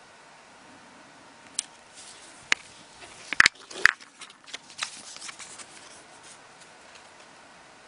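Plastic lenticular business cards being handled: a scattering of sharp clicks and rustles, loudest about three and a half seconds in, as the cards are set down on a tabletop and picked up again.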